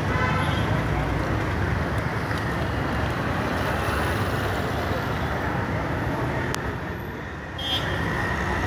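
Steady city street traffic noise from passing road vehicles, dipping briefly near the end.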